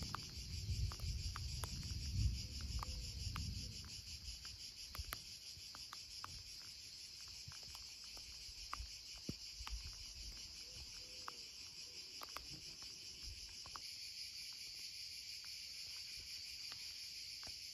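A steady chorus of insects shrilling, a continuous high, finely pulsing drone, with a low rumble in the first few seconds and a few faint clicks.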